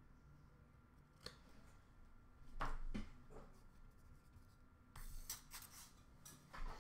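Faint rustling and a few light clicks of a hand picking through opened trading-card packs and wrappers in a plastic bin, with a longer crinkly rustle near the end.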